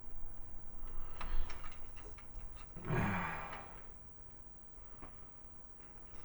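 Light clicks and ticks of small plastic parts and clippers being handled. About three seconds in there is a single breathy sigh.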